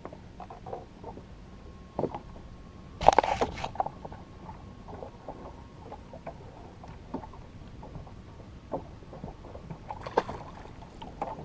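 Scattered knocks and rattles of a freshly caught jack crevalle being handled in a jon boat, with one loud clatter about three seconds in.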